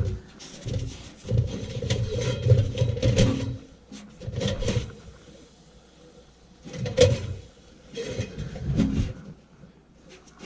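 Rust being scraped and rubbed off a blower motor's shaft in several short bouts of strokes, with gaps between them, to free the blower wheel's hub so it will slide off.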